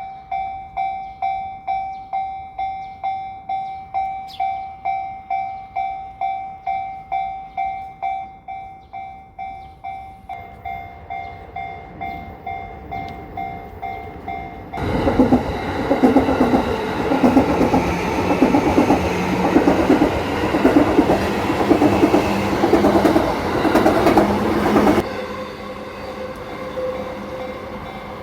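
Level-crossing warning bell ringing in steady strikes, about two a second. About fifteen seconds in, a Yamanote Line train passes over the crossing for about ten seconds, louder than the bell, its wheels clattering rhythmically over the rail joints, and the noise drops off sharply when it has gone by.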